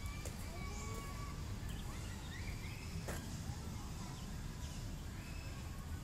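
Scattered bird chirps and short whistled calls over a steady low rumble, with a faint click about three seconds in.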